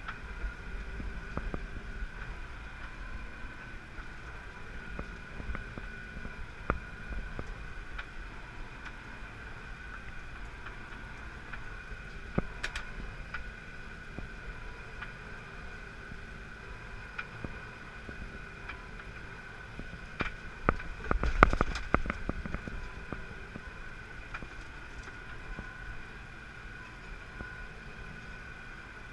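Tractor engine and a tractor-drawn small square baler running steadily, heard from inside the tractor cab as a continuous hum with scattered clicks. About two-thirds of the way through comes a short burst of loud knocks and rattles.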